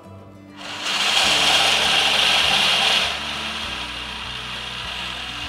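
Kitchen robot's blades spinning at high speed, grinding crisp dehydrated black olives into powder. The loud grinding starts about a second in and after a few seconds drops to a lower, steadier whir.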